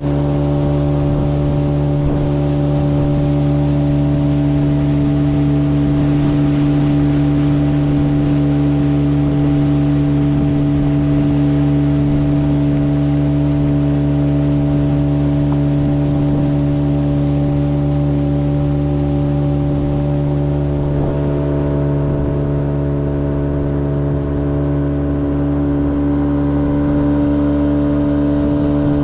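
Fishing boat's outboard motor running at a steady speed while under way.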